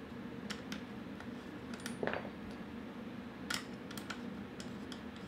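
Scattered light clicks and taps, about ten in all, from hands handling a PCP air rifle's wooden stock and metal action.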